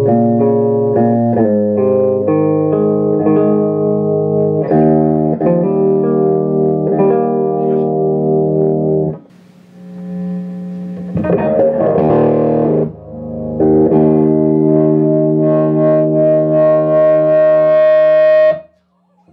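Electric guitar played loud through a 1964 Marshall JTM45 Bluesbreaker valve combo, with bass and loudness set to about 6, to test whether its hot-glue-repaired Celestion speaker holds up. Ringing chords change every second or so for about nine seconds, then there is a brief dip and a strummed passage. A long held chord follows and is cut off near the end.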